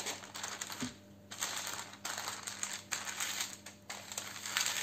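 Parchment paper rustling and brushing as a sheet is laid over a mound of biscuit dough and smoothed and pressed flat by hand, in a series of short sliding strokes.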